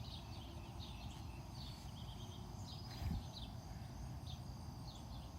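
Small birds chirping over a steady low outdoor rumble, with one brief thump about three seconds in.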